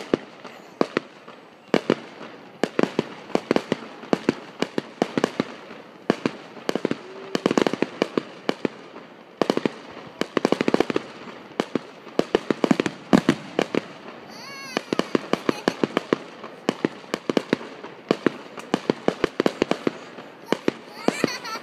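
Aerial fireworks going off in a rapid, irregular barrage of sharp bangs and crackles, many shots in quick succession.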